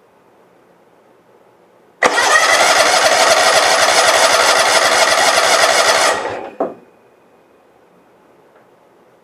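John Deere LT190 lawn tractor's Kawasaki 18 hp engine being started after reassembly: it turns over loudly with a fast, even pulse for about four seconds, then winds down and stops, with a single knock just after.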